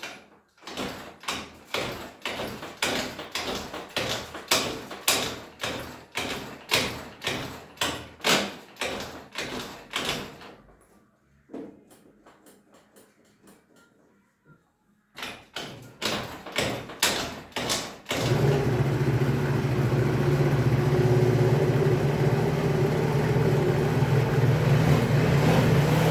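Chinese Hoabon 50 cc scooter engine being kick-started on its freshly repaired kick starter, without the battery: a run of kicks, about two a second, that crank but do not fire, a pause, a few more kicks, then the engine catches about eighteen seconds in and keeps running steadily.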